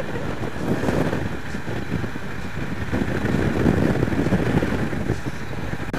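Wind rushing over the microphone, mixed with the engine and road noise of a Suzuki V-Strom 650 XT adventure motorcycle being ridden at a steady pace.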